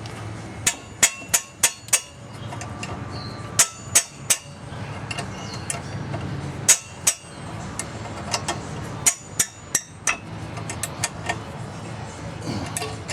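Sharp metallic strikes with a short ring, in irregular groups of two to six, as a tool knocks on steel brake hardware to bust a part loose during a rear brake caliper change.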